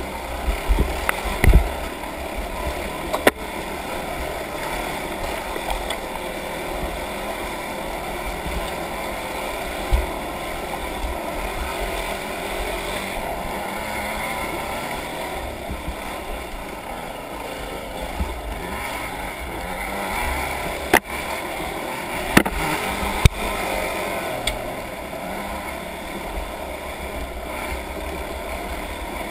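Off-road vehicle engine running steadily over rushing water, with a few sharp knocks about three seconds in and again around twenty-one to twenty-three seconds.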